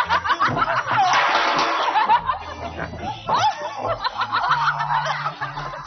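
Music with sustained low notes, with several people laughing and squealing over it.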